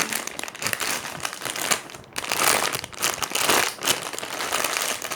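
Crinkling and rustling as a jumbo panda-egg squishy toy is handled and squeezed, in irregular bursts that are loudest about two and a half and three and a half seconds in.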